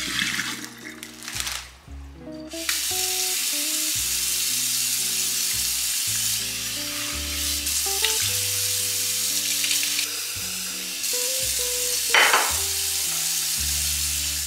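Kitchen faucet running into a stainless steel sink, a steady hiss of water that comes on full about two and a half seconds in, with a brief louder splash near the end. Background music plays throughout.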